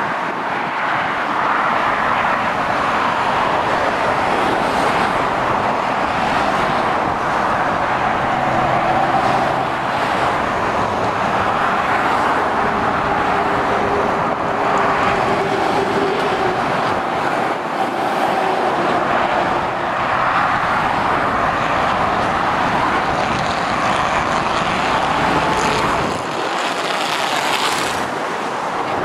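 Steady motorway traffic: lorries and cars passing, a continuous rush of tyre and engine noise that swells and eases as each vehicle goes by.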